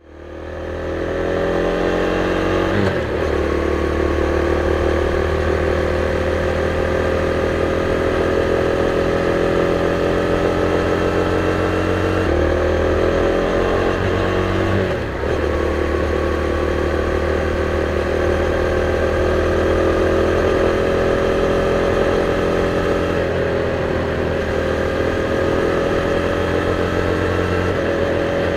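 KTM Duke 390's single-cylinder engine through its stock exhaust, riding along with the revs climbing slowly between several changes of pitch as it shifts gear. The sound fades in at the start.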